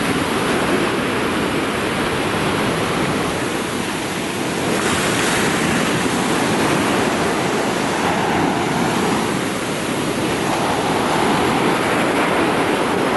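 Small waves breaking and washing up on the shore, a steady rush of surf that swells a few times, brightest about five seconds in.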